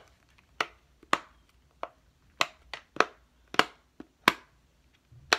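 Silicone domes of a classic dimple fidget toy being pressed and popping through, about ten sharp clicks at an uneven pace, the last near the end the loudest.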